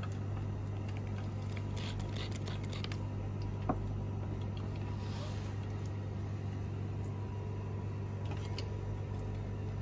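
Steady low mechanical hum, even throughout, with a few faint light clicks about two seconds in.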